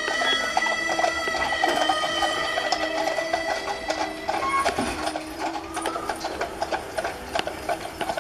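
Background music with long held notes, over a dense, irregular clicking and clatter.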